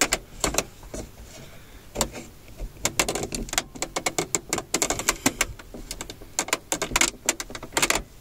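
Plastic pry pick scraping and clicking against a car's plastic overhead dome-light cover as it is worked loose: runs of small sharp clicks and scrapes in several bunches.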